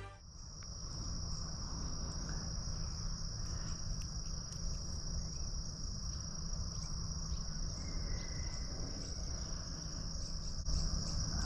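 Steady chorus of crickets: one continuous high-pitched trill that does not break, with a few faint clicks.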